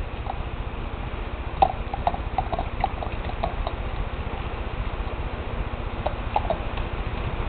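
A dog, likely a Siberian husky, lapping beer: a run of quick wet laps about four or five a second, a pause, then a few more near the end, over a low steady hum.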